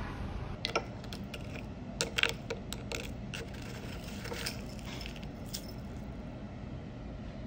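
Plastic measuring scoop clinking against a ceramic bowl and scraping through coarse coloured sugar crystals, a run of light clicks and rattles, the sharpest about two seconds in, over a low steady hum.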